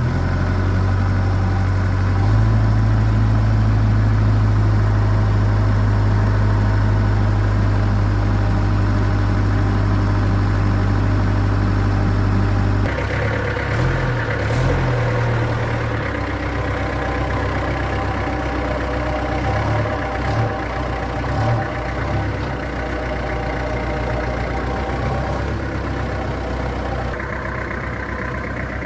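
Vintage truck engine running steadily with a low drone. About 13 seconds in, the sound changes abruptly to a rougher, less even running.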